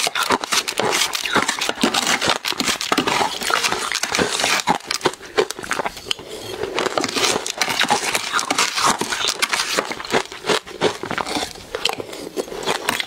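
Close-miked crunching and chewing of powdery ice mixed with matcha powder: a dense run of fine crackling crunches. A metal spoon scrapes and scoops the ice in a plastic tub.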